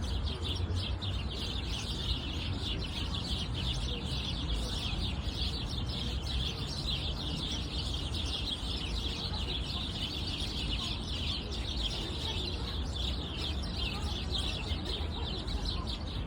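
Many small songbirds chirping at once in a dense, continuous chorus of quick high notes, over a low steady rumble.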